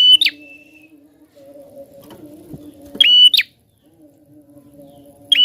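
Prinia (prenjak) calling: loud, sharp chirps repeated three times at intervals of about two and a half seconds, over a faint steady low drone.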